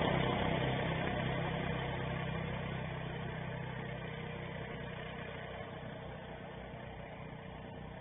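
ATV (four-wheeler) engine running as the quad drives away, its sound fading steadily.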